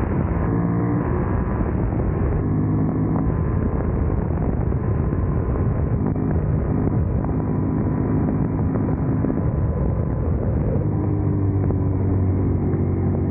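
Yamaha MT-07's 689 cc parallel-twin engine running at speed on the road. Its note steps up and down several times as the revs change.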